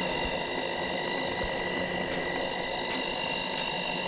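Milling machine motor running with a steady, even whine made of several held tones, as the table is driven across to a new position.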